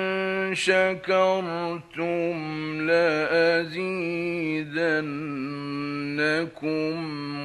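A man's voice chanting Quran recitation in the melodic mujawwad style, with long held notes ornamented by rapid melismatic turns. The phrases break off briefly several times.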